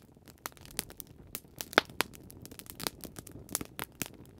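Wood fire crackling: irregular sharp pops and snaps, several a second and uneven in loudness, over a faint low background.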